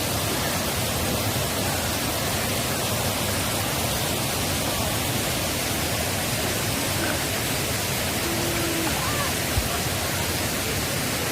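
Mountain valley stream rushing: a steady, even noise of running water.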